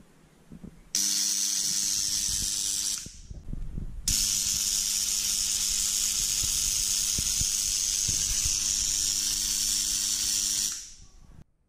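Tesla coil running, its top terminal throwing a spark discharge: a loud hiss over a steady buzz. It runs in two stretches, a short one about a second in and a longer one from about four seconds in, each switching on and off sharply.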